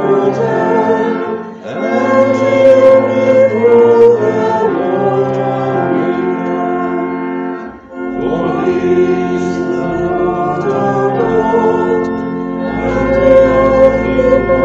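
Congregation singing to church organ accompaniment. The organ holds sustained chords under the sung line. There are brief breaks between phrases about two and eight seconds in, and a deep bass note comes in near the end.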